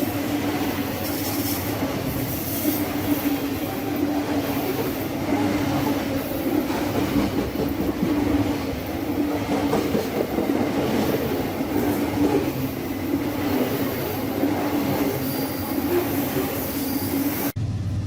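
Recorded sound effect of a real train running on the rails: a steady rumble of wheels on track with a held tone through it. Near the end it cuts off abruptly into a duller, lower hum.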